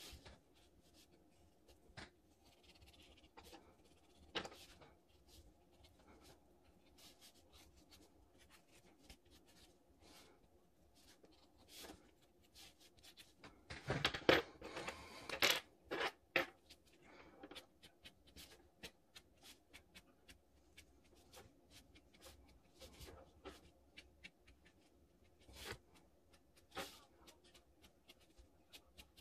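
Quiet desk sounds of drawing: scattered light taps and scratches of a brush and a fine-liner pen on watercolour card over a faint steady hum. About halfway through comes a short burst of louder clicking and rustling as pens are picked up from the desk.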